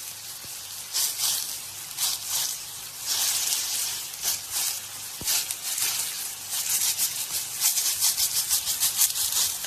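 Pepperoni slices sizzling and crackling in hot oil in a frying pan, the spatter pops getting busier in the second half.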